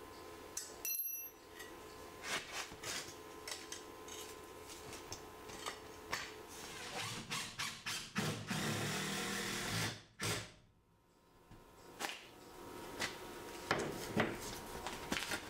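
Small hand-held power tool running briefly against cast aluminium, about seven to ten seconds in. Before and after it come scattered clicks and knocks of aluminium hinge parts being handled and fitted together.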